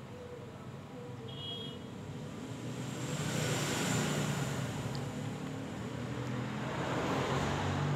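Road traffic: a rushing noise with a low rumble that swells up about three seconds in and stays loud.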